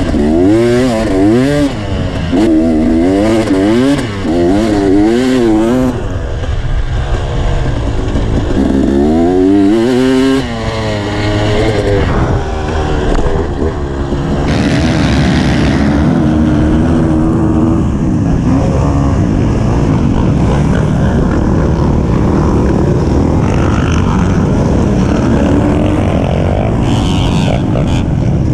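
Dirt bike engine ridden on a motocross track, its revs climbing and dropping again and again. About halfway through the engine sound turns steadier, with smaller swings in pitch.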